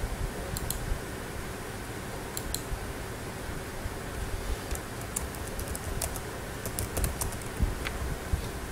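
Computer keyboard being typed on: a few scattered clicks, then a quick run of keystrokes from about four and a half seconds in, over a steady low background noise.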